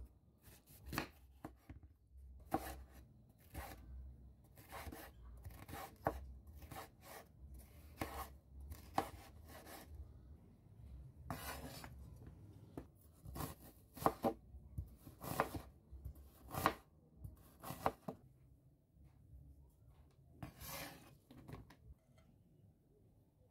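Chef's knife slicing a yellow bell pepper into strips on a wooden cutting board: a long run of irregular knife strokes, each ending on the board, dying away a couple of seconds before the end.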